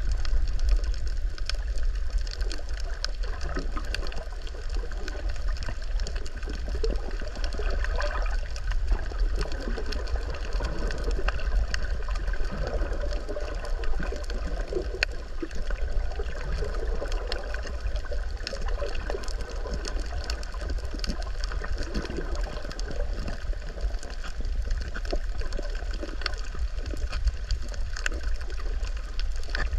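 Muffled underwater water noise picked up by a submerged camera while snorkelling: a steady low rumble with gurgling and many scattered faint clicks.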